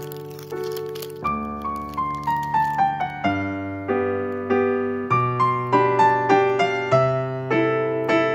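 Background piano music: a gentle melody of struck notes in short falling runs over low held bass notes.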